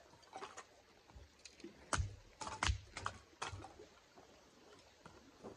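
Small camp axe splitting kindling on a wooden chopping block: a series of sharp wooden knocks and clacks as the blade bites and the split pieces fall. The strongest strikes come about two seconds in, with a quick cluster just after and a few lighter taps around them.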